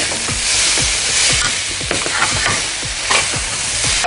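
A steady hiss with scattered light knocks and clicks of kitchen handling at the counter.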